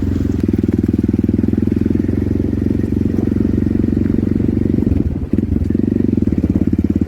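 A small engine running steadily with a fast, even throb, briefly dipping about five seconds in.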